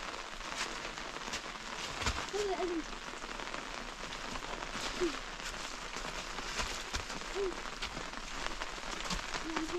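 Steady rain falling on rocks, with scattered sharp taps and a few brief low vocal sounds, each falling slightly in pitch.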